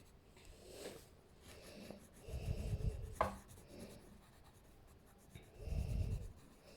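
Pencil lightly shading on paper, faint and scratchy, with two louder muffled rubbing spells about two and six seconds in and a single sharp tick between them.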